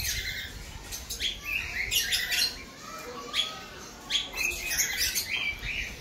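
A flock of African lovebirds, masked and Fischer's, chirping and squawking: short, sharp calls several times over.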